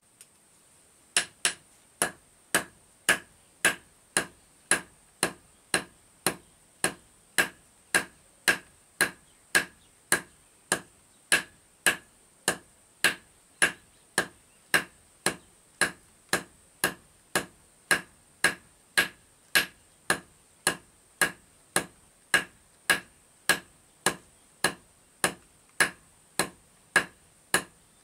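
Blacksmith's hand hammer striking iron on an anvil in a steady rhythm, about two ringing blows a second, starting about a second in.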